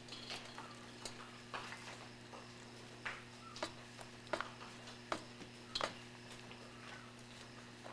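Ostrich chicks pecking bugs out of a shallow metal pan: faint, sharp, irregular taps of beaks on metal, about one a second, over a steady low hum.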